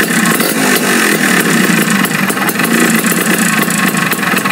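Two-stroke motorcycle engine running loud and steady at the exhaust, with a fast irregular rattle through it.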